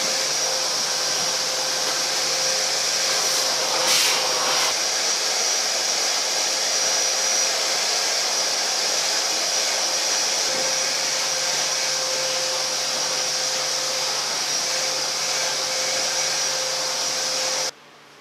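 An electric air-moving machine, such as a blower or vacuum, runs steadily with a rushing of air and a thin motor whine. There is a brief swell about four seconds in, and the sound cuts off abruptly near the end.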